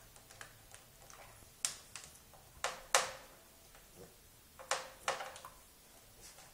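A pug chewing a hard-candy lollipop: a handful of sharp, irregular clicks and clacks as the candy knocks against its teeth and the crate floor.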